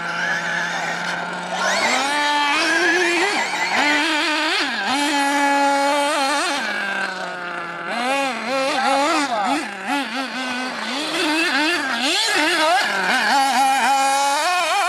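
Team Associated RC8Te radio-controlled truggies running on a dirt track, their motors constantly rising and falling in pitch as the throttle is worked through corners and jumps.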